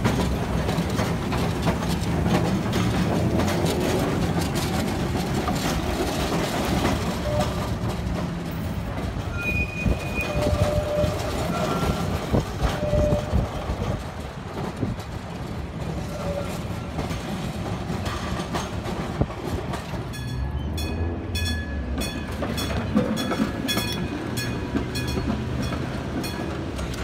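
Historic streetcars passing, first a Milan Peter Witt tram and then a PCC car, with a steady rumble of steel wheels on rail. There are short high squeals of the wheels on curved track in the middle, and a run of clicks near the end as the wheels cross rail joints and track crossings.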